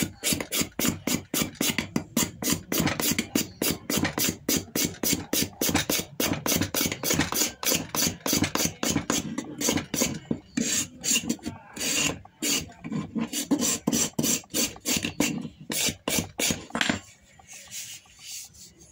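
A hand scraper blade drawn in quick strokes along the imbuia wood of a rifle stock, about three or four rasping strokes a second, stopping near the end.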